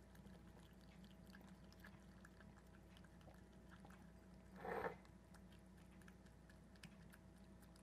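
Two cats lapping and eating from a small glass bowl: faint, quick wet licking and chewing ticks. One brief louder sound comes about four and a half seconds in.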